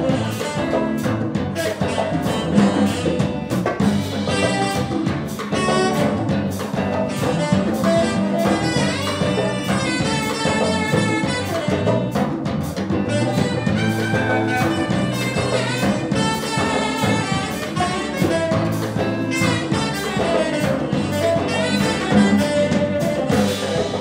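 Live band playing an instrumental: saxophone and harmonica lines over electric bass and drum kit.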